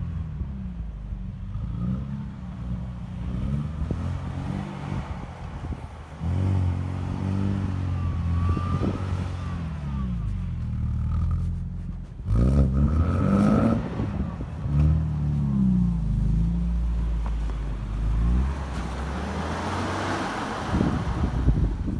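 A UAZ Patriot's engine revs up and down repeatedly under load as the SUV struggles to climb through deep snow, with sharp surges about a quarter and about half way in.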